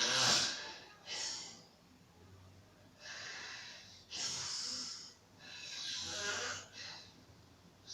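Woman snoring in her sleep: a run of noisy, wheezy breaths, about six in all at irregular spacing.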